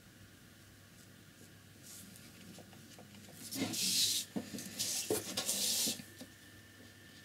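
A sheet of paper being slid and turned across a tabletop: a rubbing, hissing rustle lasting about two and a half seconds, starting around halfway through.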